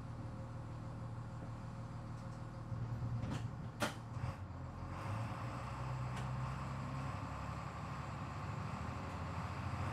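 School bus engine idling with a steady low hum, with two sharp clacks just before four seconds in. From about five seconds in the bus is driving, its engine running under a fuller rumble of road and cabin noise.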